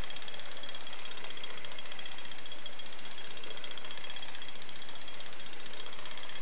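Mechanical drumming panda bear toy running, with a steady, fast, even rattle from its drumming mechanism.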